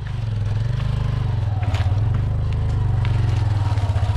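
An engine running steadily: a loud, low pulsing rumble, with a few light clicks over it.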